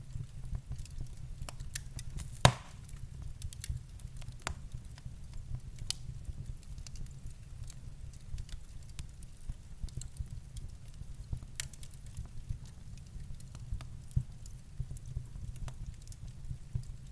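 Wood fire burning in a fireplace: scattered crackles and pops over a steady low rumble, with one sharp, loud pop about two and a half seconds in.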